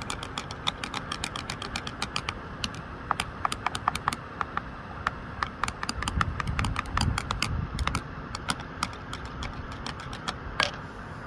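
Rapid, irregular sharp clicks, several a second, over a faint low rumble that swells about six seconds in and fades two seconds later.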